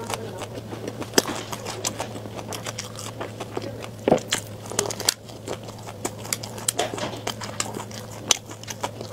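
Close-miked chewing of a flaky, cream-filled baked pastry: scattered wet mouth clicks and crackles, with a low steady hum underneath.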